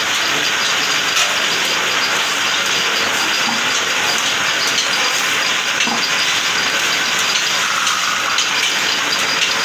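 Belt-driven lathe running steadily while an aluminium pot (handi) is worked on it: an even, hissing machine noise with a faint high whine.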